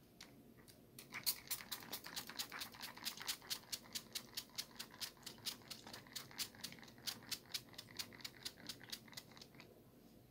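Fingertips quickly patting rose water into wet facial skin: a fast, even run of light slaps, about four or five a second, starting about a second in and stopping shortly before the end.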